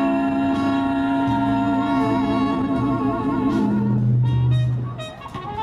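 1940s swing backing music between sung lines: long held horn-like chords, one note wavering with vibrato partway through, easing off briefly near the end.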